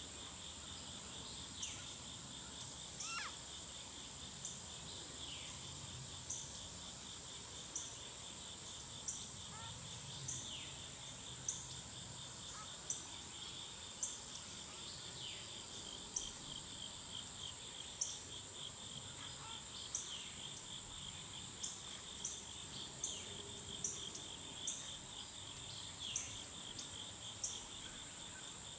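Woodland insect chorus: a steady high buzz and a lower, rapidly pulsing trill. Short sharp high chirps come every second or two, with a few falling notes.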